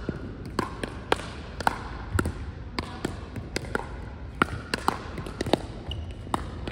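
Pickleball rally: paddles striking a hollow plastic pickleball back and forth, sharp pops about twice a second, echoing in a large gym.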